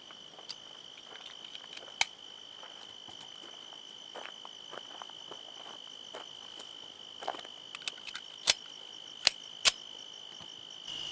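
Crickets trilling steadily on one high pitch, with sharp metallic clicks of pistols and magazines being handled and loaded. The loudest clicks come once about two seconds in and three times in quick succession near the end.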